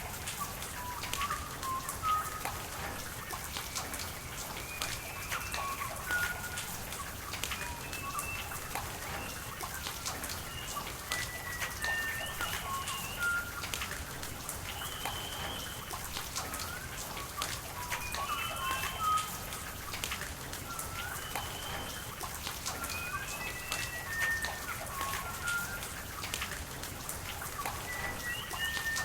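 Steady rain with running water, sharp drips pattering throughout, while birds call over it with short whistled notes at different pitches, a few every second or two.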